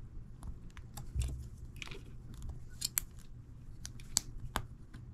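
Plastic Playmobil toy bike parts being handled and pressed together: scattered light clicks and snaps at an uneven pace.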